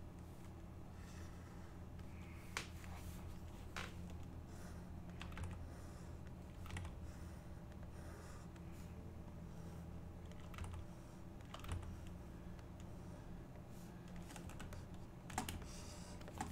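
Scattered single clicks of computer keyboard keys, a few seconds apart, with a couple of louder ones near the start and near the end, over a low steady hum.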